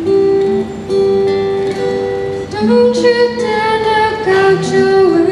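Acoustic guitar playing held, ringing notes, joined about halfway through by a girl singing into a microphone.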